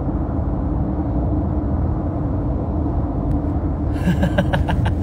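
Steady road and engine rumble inside a moving car's cabin. About four seconds in, a man bursts into a short laugh.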